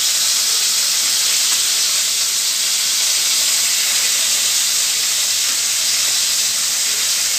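Marinated beef slices frying in hot oil in a wok, a loud steady sizzle with the oil spattering.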